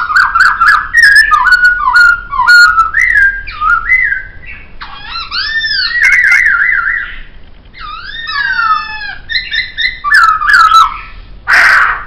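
Poksay (laughingthrush) singing a loud, varied song of clear whistled phrases: quick slurred notes, a wavering warble, falling glides, and a short harsh rasping note near the end.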